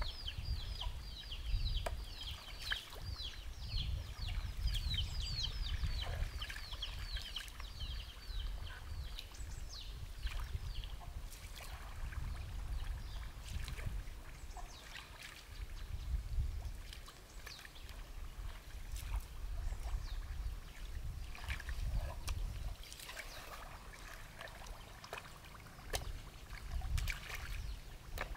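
Water sloshing and trickling as someone wades and hand-gathers mussels and snails into a metal basin, with scattered clicks and splashes. A bird calls in a fast run of high repeated notes for about the first nine seconds.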